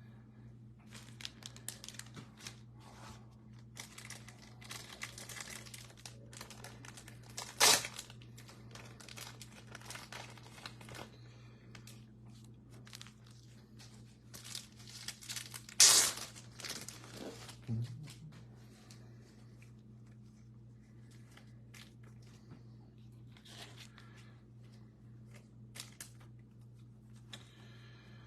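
Packaging being handled: irregular crinkling and tearing, with two sharp, loud rips about 8 and 16 seconds in, over a steady low hum.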